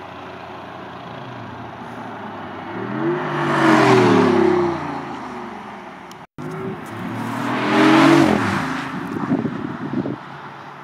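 BMW i8 hybrid sports car with a turbocharged three-cylinder petrol engine driving past at speed twice. Each time the engine note rises as it approaches, then drops in pitch as it goes by, with tyre noise. The second pass comes after an abrupt break about six seconds in.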